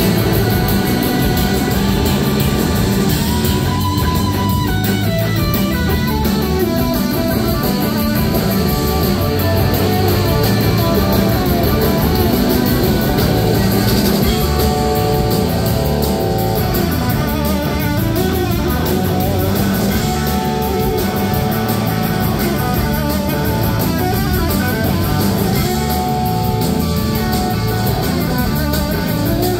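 A live rock band playing, with an amplified electric guitar out front over bass and drums, heard through the venue's PA.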